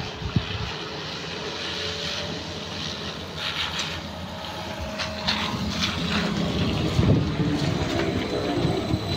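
Trolza-5275.07 Optima trolleybus approaching and pulling up, its electric traction drive whining over tyre and road noise. The whine falls in pitch near the end as the trolleybus slows to a stop, with a few short hisses along the way.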